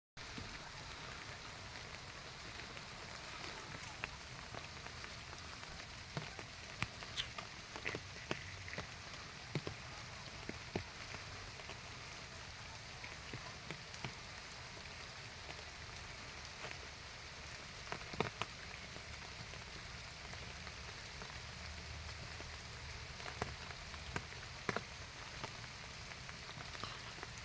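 Steady hiss of rain with scattered sharp drips or ticks at irregular intervals.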